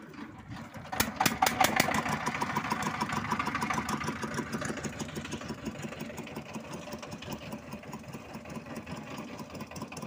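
A fishing boat's engine running with a rapid, even chugging that picks up and grows louder about a second in, then carries on steadily.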